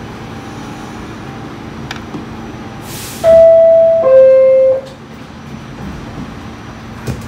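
New York subway R46 car's two-tone door chime, a higher tone followed by a lower one, each about three-quarters of a second, warning that the doors are about to close. A short hiss of air comes just before it, a brief knock near the end, and a steady hum from the stopped train runs underneath.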